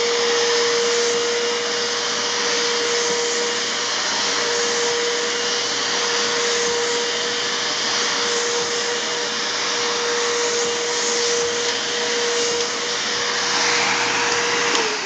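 Bissell Lift-Off Multi-Cyclonic Pet canister vacuum running steadily with a whine while vacuuming a rug. Right at the end it is switched off and its pitch begins to fall as the motor winds down.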